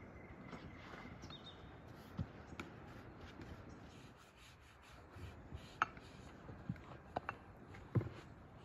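Hands rubbing and pressing dough on a floured wooden board, a soft scraping with several light sharp taps in the second half.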